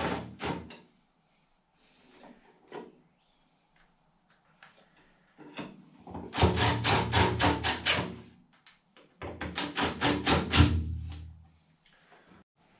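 Cordless DeWalt impact driver driving screws into a metal electrical box: a short burst at the very start, then two longer runs of rapid clattering impacts over the motor's hum, each lasting about two to three seconds.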